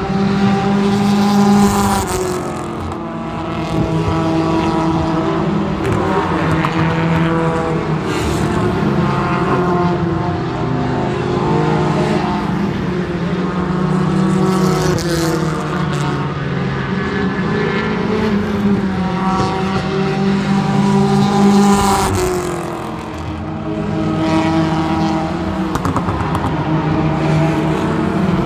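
Front-wheel-drive race cars lapping a short oval. Several engines rev up and down as the cars pass, with the loudest passes about two seconds in and again around twenty-two seconds.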